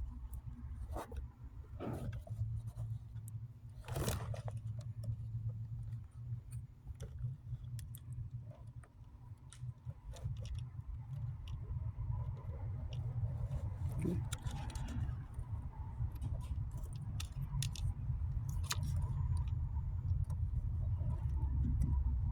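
Scattered light clicks, jingles and scrapes of wires and small hand tools being handled, over a steady low hum.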